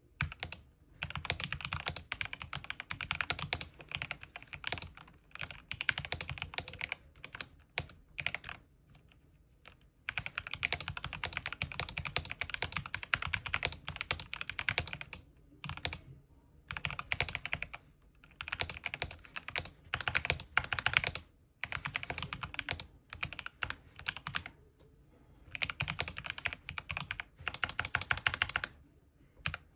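Rapid typing on a Corsair K70 mechanical gaming keyboard, its keys clacking in runs of a few seconds broken by short pauses.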